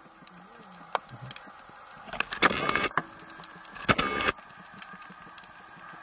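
A snorkeler's breathing through the snorkel, picked up by the underwater camera: two loud rushing breaths with a slight whistle, about two and four seconds in, with scattered faint clicks between them.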